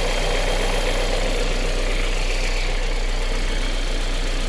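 2019 Kia Sorento's 2.4-litre four-cylinder engine idling steadily, heard under the open hood.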